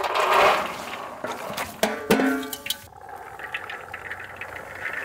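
Pomegranate seeds being poured from a bowl into a large steel basin, a rushing patter of seeds against metal that is loudest in the first second and settles into a steadier rustle. A short pitched sound comes about two seconds in.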